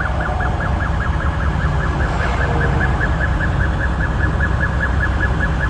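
An electronic alarm chirping rapidly and evenly, about five short chirps a second, over a steady low rumble.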